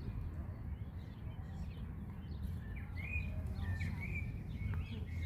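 Birds chirping: short, quick calls that start about halfway through, over a steady low rumble.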